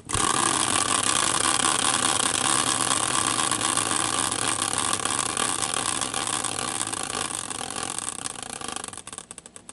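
Large caster wheel, used as a team wheel, spun hard by hand and whirring on its axle. It slowly winds down and breaks into a run of slowing clicks just before it stops near the end.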